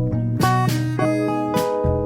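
Background music led by strummed acoustic guitar, with a bass line and a steady beat.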